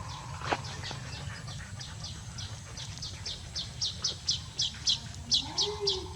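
A bird chirping over and over in short, high notes that each fall in pitch. The chirps come faster and louder toward the end, about four or five a second, over a low steady hum.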